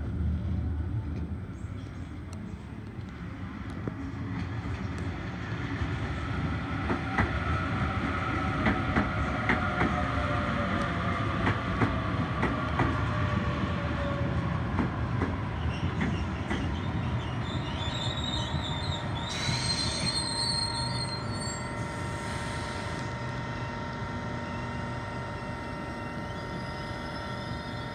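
Sydney Trains Waratah Series 2 double-deck electric train pulling into the platform and slowing. A whine falls in pitch as it brakes, and wheels click over rail joints. A brief high squeal comes about twenty seconds in, then a steady hum holds as it nears a stop.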